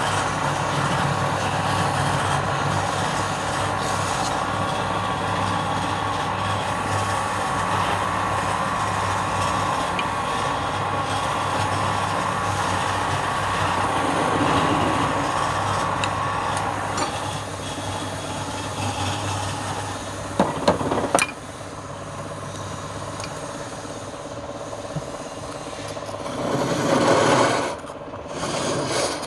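Wood lathe running while a turning tool scrapes and cuts the spinning wood, over a steady motor hum. A few sharp knocks come about twenty seconds in, the hum fades out soon after, and a louder burst of scraping follows near the end.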